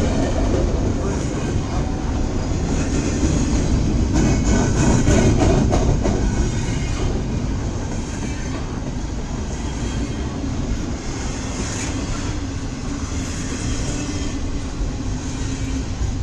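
CSX double-stack intermodal freight train rolling past at close range: a steady, dense rumble of the well cars on the rails, a little louder about four to six seconds in.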